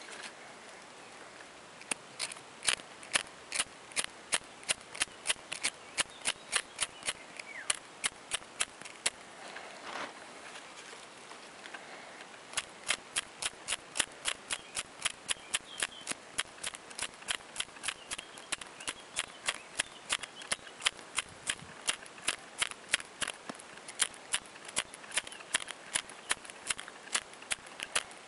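Quick, regular strokes of a blade working dry tinder material, about three a second, stopping for a few seconds near the middle and then starting again.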